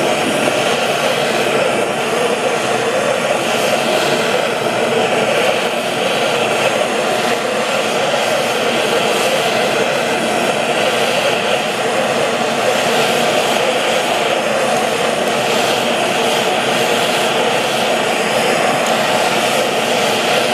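Handheld gas torch flame burning with a steady rush as it heats aluminum square tubing to brazing temperature for HTS-735-11 rod.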